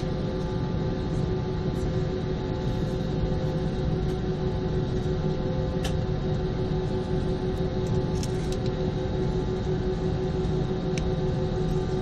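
Steady drone inside an airliner cabin on the ground before takeoff: a low rumble with a constant whine of two held tones, and a few faint clicks.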